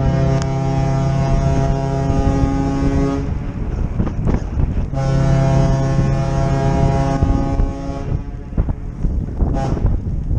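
The MS Chi-Cheemaun ferry's horn sounding two long, steady blasts, each a few seconds long and a little under two seconds apart, sounded as a tribute salute. Wind rushes on the microphone throughout.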